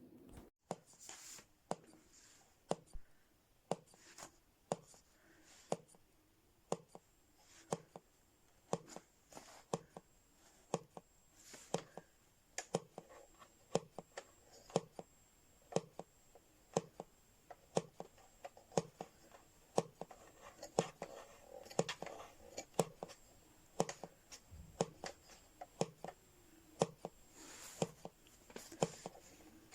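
A series of short sharp clicks, irregular at about one or two a second, with faint handling noise between them.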